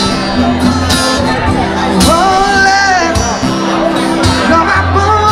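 Live band music with a lead singer: sung phrases over steady bass notes, with crowd noise underneath.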